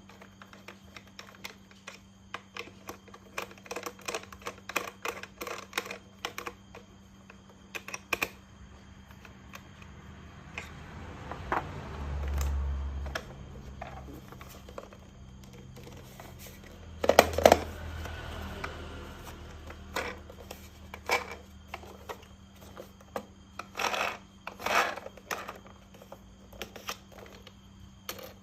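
Plastic toy train parts being handled and snapped together: a run of light clicks and rattles, with a louder clatter a little past halfway.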